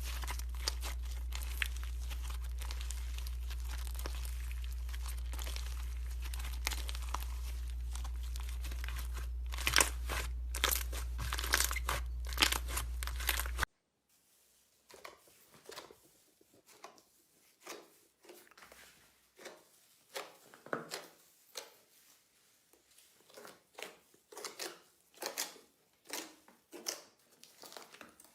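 Slime being squeezed and poked by hand, crackling and popping. A steady low hum lies under the first half, then stops at a sudden cut about halfway through. After the cut come quieter, separate squishes, about one or two a second.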